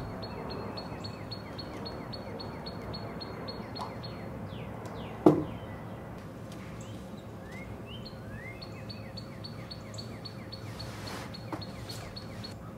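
Backyard birds calling: a rapid run of high, even chips at about five a second, with short sliding calls between them and a second run of chips later. A single sharp thump about five seconds in.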